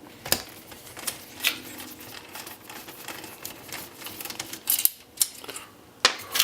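Irregular sharp clicks and knocks of hand tools against the metal and plastic parts of a dot-matrix printer being taken apart, a cluster of louder knocks near the end.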